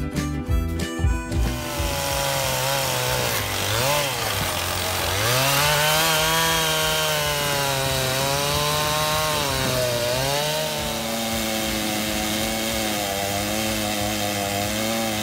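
Petrol engine of a portable sawmill running under load as the saw cuts through a log, with a steady rasping cutting noise; the engine's pitch dips and recovers about four seconds in and again about ten seconds in. It starts about a second and a half in, after a stretch of music.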